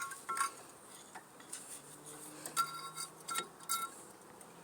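Short metallic clinks, about five in all, from a tool working against the front brake caliper as its piston is pushed slowly back in.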